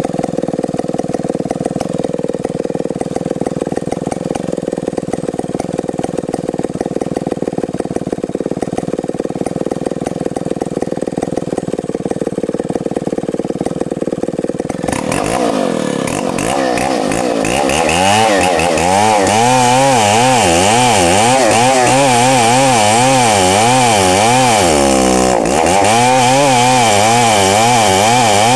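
Stihl 070 two-stroke chainsaw idling steadily, then revved up about 15 seconds in and running at high speed, its pitch wavering up and down repeatedly, with a brief dip about 25 seconds in.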